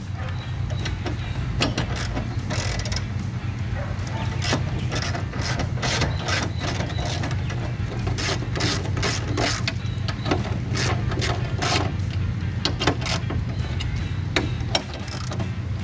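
Hand socket ratchet clicking in quick, irregular runs as bolts are driven into a tailgate hinge bracket.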